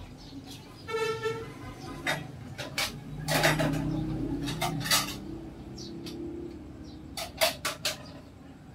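A short horn-like toot about a second in, then a low drone and several sharp clicks and knocks, with a quick cluster of knocks near the end.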